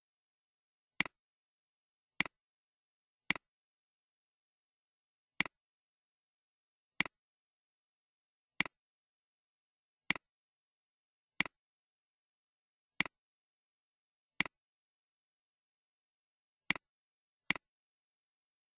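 Computer mouse clicks: about a dozen short, sharp single clicks, irregularly spaced one to two seconds apart, with dead silence between.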